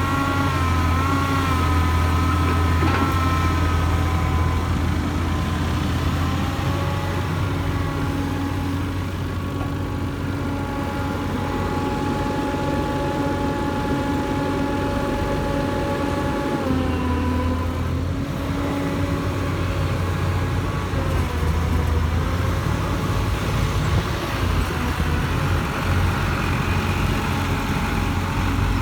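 Hyundai Robex 220-9SH excavator's diesel engine running steadily under work, with a high whine over it that wavers about a second in and shifts in pitch around seven and seventeen seconds in.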